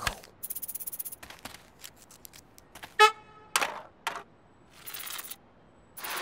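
Cartoon slapstick sound effects: a quick run of rapid ticks near the start, a short, loud pitched blip about three seconds in, then several quick swishes and another short run of ticks.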